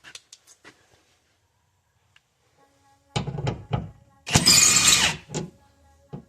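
A few sharp knocks of tools on the liftgate, then a loud harsh burst lasting under a second from a power tool run briefly, likely loosening the 10 mm bolts that hold the rear wiper motor.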